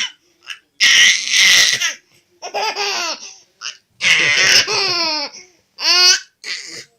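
A baby laughing in a run of loud bursts, some breathy and hissing, others with a clear voice falling in pitch, the last two short.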